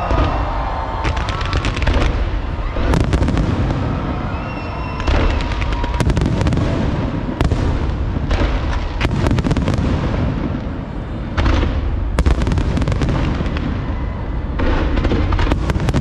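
Large aerial fireworks display: a dense barrage of shell bursts with deep booms and crackling. Volleys follow one another every second or two, with only brief lulls between them.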